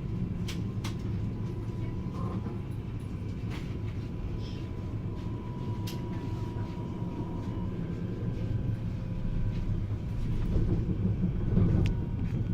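Running noise heard inside a moving regional train carriage: a steady low rumble with a few sharp clicks from the wheels and track, swelling louder near the end.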